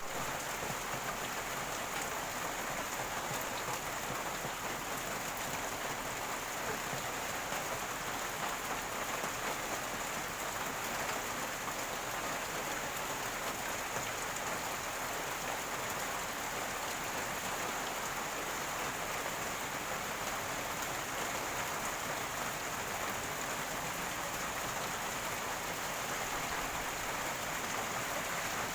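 Steady rain falling: a dense, even hiss of drops that holds constant throughout.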